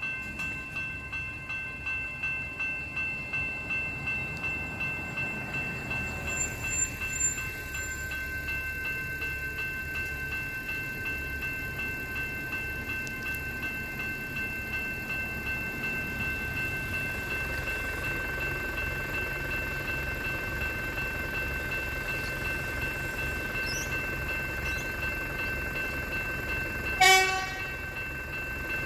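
Railway level-crossing bells ringing in a rapid, even pulse while the boom gates are down, over a low rumble. Near the end a train sounds one short horn blast.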